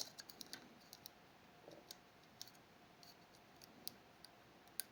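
Faint, irregular small metallic clicks of a lock pick working the levers inside a Fichet 484 lever sidebar lock.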